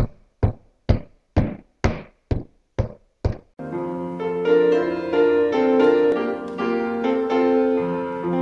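Eight sharp, evenly spaced knocks, about two a second, then piano music starts about three and a half seconds in.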